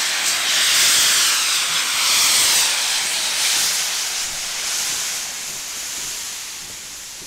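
Steam locomotive No. 6990 venting steam: a loud, steady hiss that fades over the last couple of seconds.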